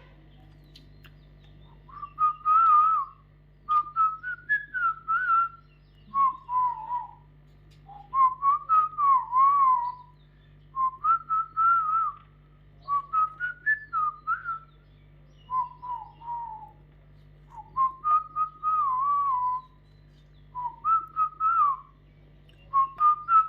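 A parrot whistling a wavering, warbling tune in about ten short phrases of one to two seconds each, with brief pauses between them, over a faint steady low hum.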